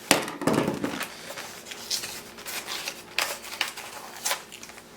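Packaging being handled: a dull thud as something is set down near the start, then scattered rustling and light taps.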